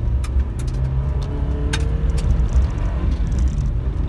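Inside the cab of a 1998 Suzuki Jimny Wide driving at speed on a dirt road in two-wheel drive: its 1.3-litre four-cylinder engine running under load over a steady low rumble of tyre and road noise, with scattered sharp clicks and knocks.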